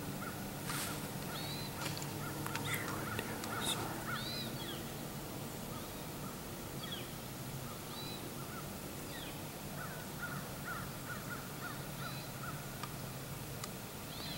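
Wild birds calling, with short chirps and calls scattered throughout, over a steady low hum.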